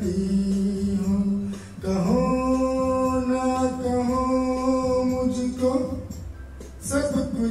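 A man singing a Hindi film song into a microphone, holding one long note, then after a short break a second, longer held note, with a new phrase starting near the end.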